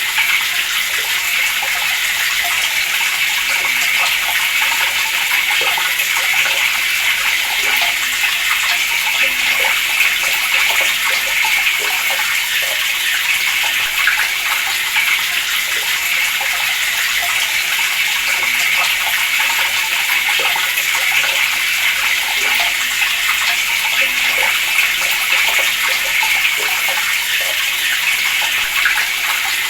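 Water running steadily from a tap, a constant splashing hiss with no break.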